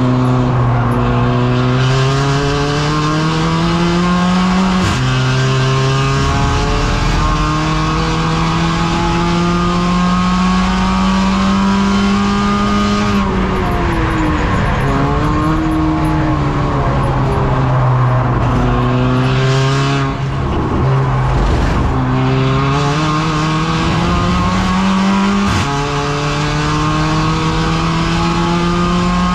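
Mercedes-AMG CLA 45 race car's turbocharged four-cylinder engine heard from inside the cabin at racing speed, its pitch climbing steadily through the gears with a sharp upshift about five seconds in and another about twenty-five seconds in. Around thirteen and again around twenty seconds in the revs fall and break up as the car brakes and downshifts for corners.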